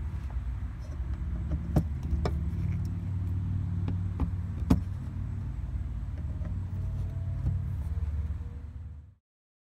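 A steady low rumble with a few sharp metallic clicks of a screwdriver against the steel fuel pump access cover; the sound fades out about nine seconds in.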